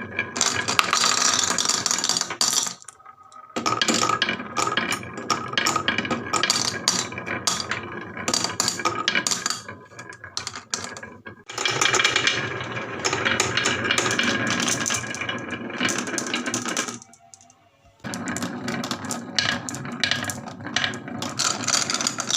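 Marbles rolling and clattering down a wooden marble run, a dense rattle of many quick clicks and knocks that comes in long runs with brief lulls about three, ten and seventeen seconds in.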